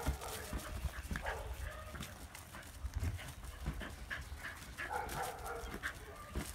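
Shetland sheepdog barking in short, repeated yips, with a cluster of barks about five seconds in.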